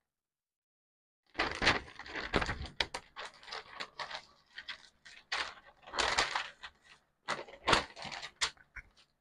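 Paper rustling and crinkling in irregular bursts as pattern paper is handled and spread out, starting about a second and a half in.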